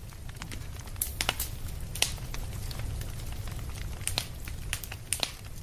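Wood campfire crackling, with sharp pops at irregular intervals over a low steady rumble.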